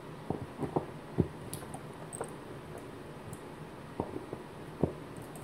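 Faint, irregular clicks and light knocks of a small folding Torx key set turning the screws that hold a replacement circuit board onto a hard drive, with the metal keys tapping against the board and each other.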